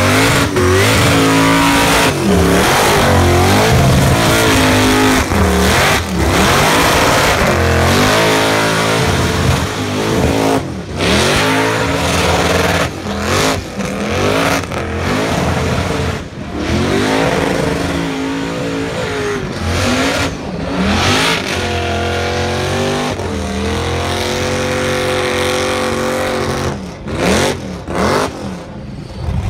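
Supercharged Holden Commodore engine revving hard through a burnout, its pitch rising and falling again and again with short breaks between revs as the rear tyres spin. The revs get lower and quieter over the last several seconds.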